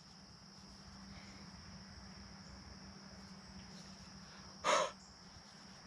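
Crickets chirping steadily over a faint low hum, with one brief breathy vocal noise from a person close by, a little before the end.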